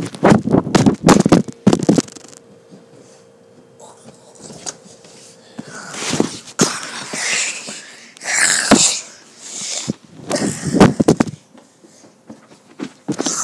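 Handling noise from a camera being thrown and tumbled: clusters of knocks and rubbing against the microphone, with breathy hissing bursts about halfway through.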